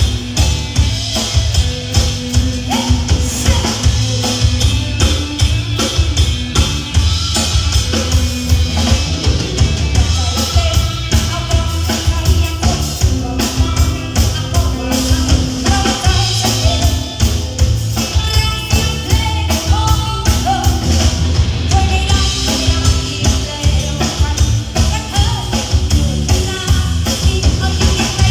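Live band music: drum kit and bass keeping a steady beat under melodic instruments, with some singing.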